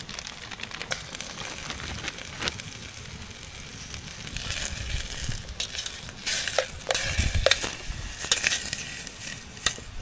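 Beef and butter sizzling in a small metal camp pot held over a campfire, the sizzle growing louder about halfway through, with scattered clinks and scrapes of stirring.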